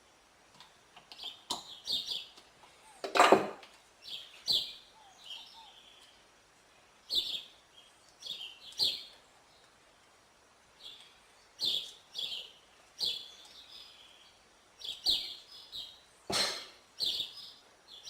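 Small birds chirping in short, repeated high calls, with two louder sharp knocks, one about three seconds in and one near the end.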